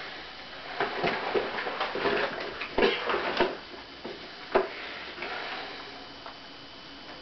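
Latex suits being handled and rubbed against each other: irregular short rubbing and creaking sounds with a few clicks, and one sharp click about four and a half seconds in.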